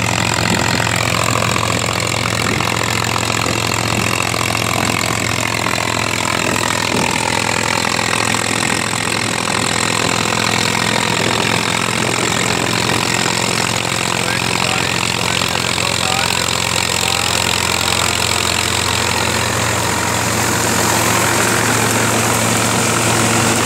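Massey Ferguson 9500 tractor's diesel engine running steadily under load while driving a Dashmesh straw reaper with an eight-foot cutter, the reaper's spinning cutter and threshing drum mixed in. The reaper's machinery grows louder near the end.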